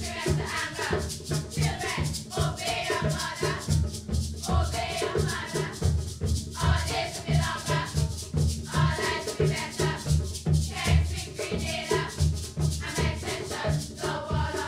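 A group of girls singing together over a steady drum beat and rattling percussion.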